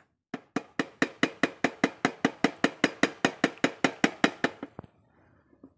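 A local monkey-scaring noisemaker struck in a fast, even run of sharp knocks, about six a second, that thins out and stops near the end.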